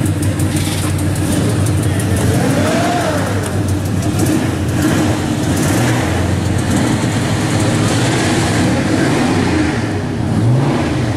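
Engine of a custom 1955–57 Chevrolet pickup running steadily at low speed as it rolls past. Its pitch rises briefly near the end as the throttle is blipped.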